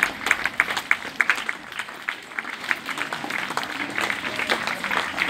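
An audience applauding: a round of clapping with individual claps clearly distinct.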